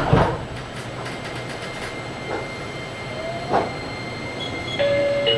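JR Kyushu 815 series electric train running on the line, heard inside the car: a steady running rumble with a sharp knock at the start and a couple of lighter wheel clacks on the rail. Near the end its electric traction drive starts a steady whine that steps down in pitch.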